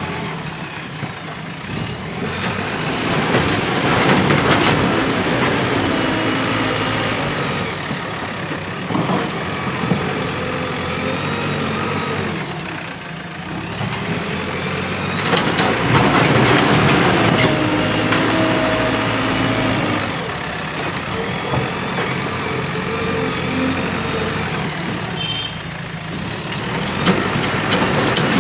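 JCB 3DX Plus backhoe loader's diesel engine working, its revs swelling and easing every few seconds as the hydraulics take load, with a whine that rises and falls with the revs and a few sharp knocks.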